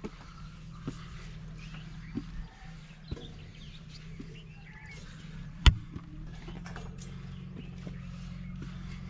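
Slow footsteps knocking and scuffing on rock-cut stone steps during a steep climb, about one step a second, with one much louder sharp knock a little past halfway. Faint bird chirps over a steady low hum.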